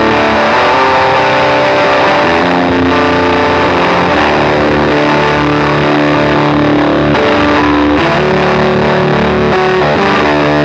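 Electric guitar played through an EarthQuaker Devices Tone Reaper, a silicon-germanium hybrid fuzz pedal, into a Strymon Iridium amp simulator on a Fender Deluxe Reverb setting. It plays distorted, sustained notes and chords that change every second or two.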